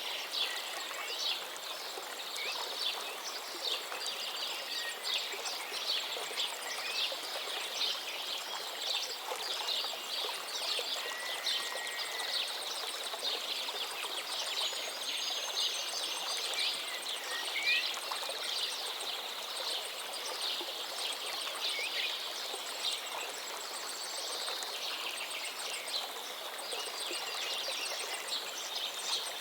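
Many small birds chirping and calling continuously, with a few whistled notes that slide in pitch, over the steady rush of flowing water.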